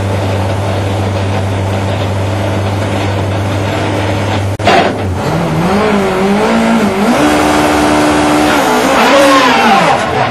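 BMW 320 STW touring car's four-cylinder racing engine, heard from inside the cockpit. It idles steadily, then after a brief break about halfway through it is revved up and down repeatedly as the car pulls away slowly.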